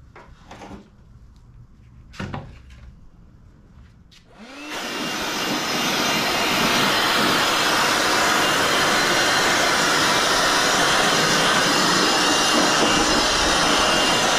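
Handheld electric blower spinning up about four seconds in and running steadily at full speed, blowing dust and packing debris out of a wooden shipping crate, then starting to wind down at the very end. A few light knocks come before it starts.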